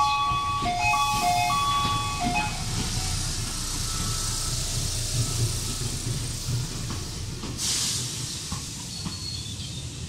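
A short electronic chime melody of steady stepped notes ends about two seconds in. After that comes a steady hiss and irregular low rumble: strong wind on the microphone, mixed with the hum of a Tobu 250 series electric train standing at the platform. A brief louder hiss comes about eight seconds in.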